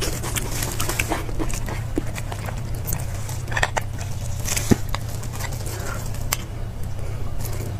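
Close-up wet slurping, lip-smacking and chewing as marrow is sucked out of a roasted beef bone, with scattered clicks and scrapes of a metal knife working inside the bone, over a steady low hum.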